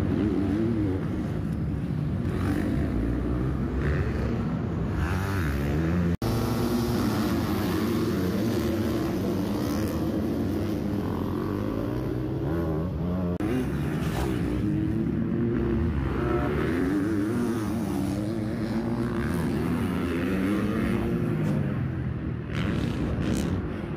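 Supercross dirt bike engines revving up and down continuously, the pitch rising and falling over and over. There is a brief dropout about six seconds in.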